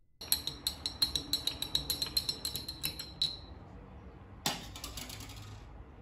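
Rapid light clinking of glass, about seven clinks a second, each ringing at the same high pitch, lasting about three seconds. About four and a half seconds in comes a brief sudden scrape of glass on a hard surface, lasting about a second.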